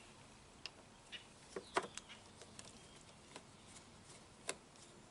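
Scattered faint clicks and taps of hand tools and small parts being handled while the enriching-circuit diaphragm assembly is taken off an outboard motor's carburetor.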